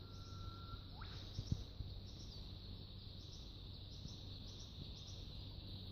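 Faint outdoor ambience: a bird whistles one held note, then a quick upward-sweeping note about a second in, over a steady high-pitched insect chorus that pulses a couple of times a second. A single light knock sounds about a second and a half in.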